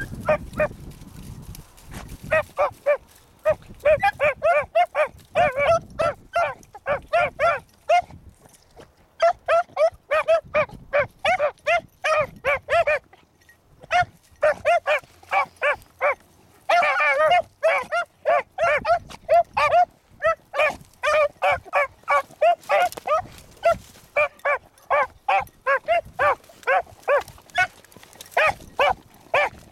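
Two young beagles baying while trailing a rabbit: rapid, repeated short pitched barks, about three a second, broken by brief pauses about a third of the way in and just before the middle, with one longer drawn-out bawl a little past the middle.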